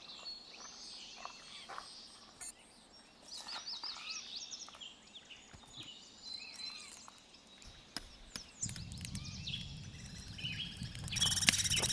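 Songbirds chirping and singing, many short calls overlapping. About two thirds in, a low rushing crackle of a wood fire under a campfire grill joins them, and music starts near the end.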